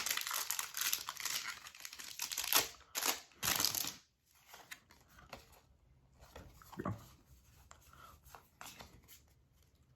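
Foil Pokémon booster pack wrapper crinkling and being torn open: about four seconds of crackling and tearing that end in a few louder rips, followed by faint handling sounds.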